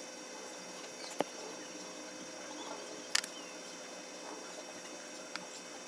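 A few sharp clicks or taps from handling parts during a speaker repair: one about a second in, a louder double click near the middle and a faint one near the end, over a steady faint electrical hum and hiss.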